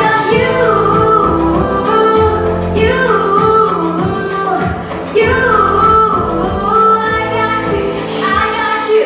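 A woman singing a pop song into a microphone over accompanying music with a steady beat, with long held notes that bend in pitch.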